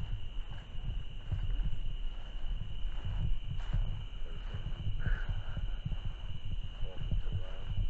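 A steady, high-pitched chorus of night insects chirring, under a louder, uneven low rumble on the microphone from the camera being carried.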